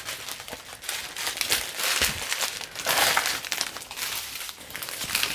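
Small plastic bags of diamond painting drills crinkling as they are handled and sorted, an irregular run of crackly rustles.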